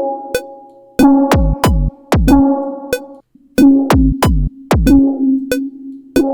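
Electronic drum loop made from recorded audio-feedback sounds: low kicks that drop quickly in pitch, sharp clicks, and steady ringing feedback tones humming underneath. The pattern repeats about every two and a half seconds.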